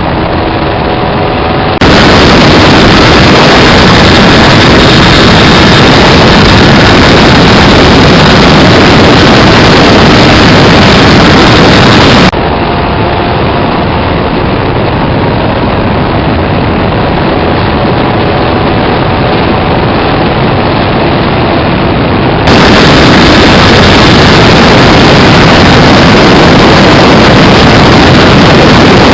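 Parallel-twin motorcycle engine running very loud and close, overloading into a dense distorted sound, with no rise or fall in revs. The sound changes abruptly in character about 2, 12 and 22 seconds in.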